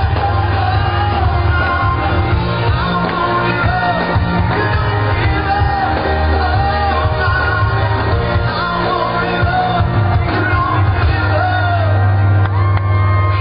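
Live pop-rock band playing with a male lead singer holding sung lines over a heavy bass and drums, heard from far back in an open-air crowd.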